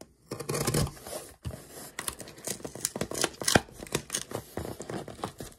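Packing tape on a cardboard shipping box being cut and pulled open: a ripping noise from about half a second in, then an irregular run of short, sharp snips and crackles.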